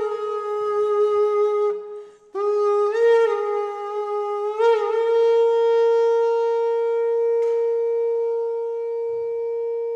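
Shofar (animal-horn trumpet) being blown: one blast breaks off about two seconds in, then a new blast starts, flicks up in pitch twice and settles into a long held note that slowly fades.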